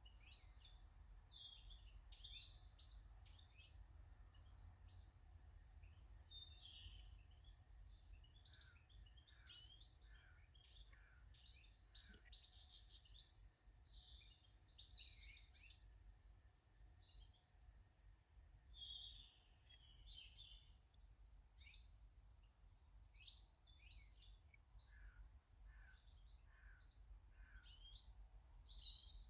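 Faint garden birds chirping and calling, many short high chirps and trills overlapping throughout, over a steady low rumble.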